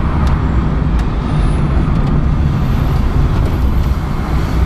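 VAZ-2109 (Lada Samara) driving in traffic, heard from inside the cabin: a steady low engine drone and road rumble.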